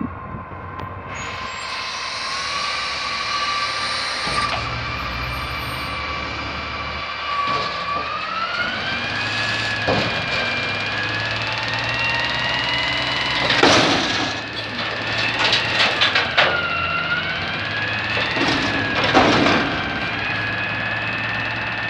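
Natural-gas front-loader garbage truck working its hydraulics to lift a dumpster: a steady whine over the engine that climbs in pitch about eight seconds in as the truck revs up. Several loud bangs and clanks come in the second half as the dumpster is raised.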